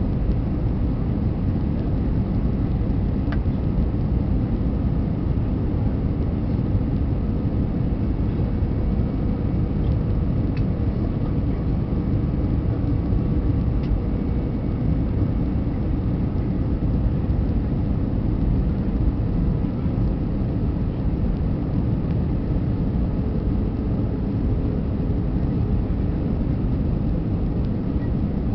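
Steady low rumble of engine and airflow noise inside the cabin of an Airbus A320 on its landing approach, with a faint steady hum above it.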